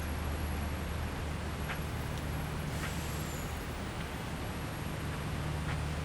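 Steady hiss of rain over a street, with a constant low hum underneath and a few faint clicks.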